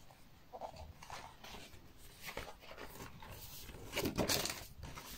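Paper rustling and handling noises as pages of a spiral-bound desk calendar are turned over, with the loudest rustle about four seconds in.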